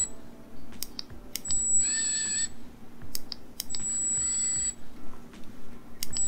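Handheld motorized implant driver turning an orthodontic anchor screw into the jawbone in short runs of about a second, each a motor whine under a steady high tone, starting again about every two and a half seconds. Sharp clicks fall between the runs.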